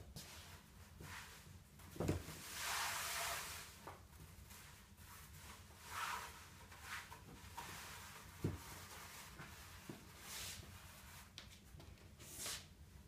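Soft rustling and swishing of stretchy jersey fabric being pulled up and draped over a dress form, with two soft low knocks, about 2 and 8.5 seconds in.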